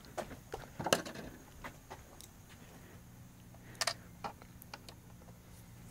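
Faint scattered clicks and taps of small parts being handled on the plastic cassette deck mechanism, the sharpest about a second in and a quick pair near four seconds. A faint low hum comes in about three seconds in.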